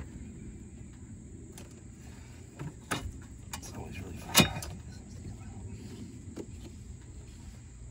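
Hands working a charge-pipe coupler loose on a Ford 7.3 Powerstroke's intake: scattered knocks and rubbing of the rubber boot and clamp on the aluminium pipe. The loudest knock comes about four and a half seconds in.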